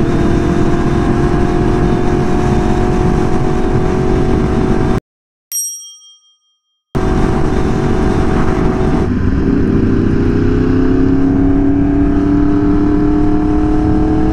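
Yamaha R1's crossplane inline-four engine running at steady revs, the pitch dropping about nine seconds in and then climbing slowly as the bike accelerates. About five seconds in the engine sound cuts out for two seconds, and a single bell-like chime rings and fades in the gap.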